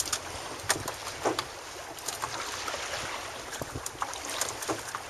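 Wind on the microphone and choppy water around a small open boat, with a handful of short sharp knocks or slaps scattered through.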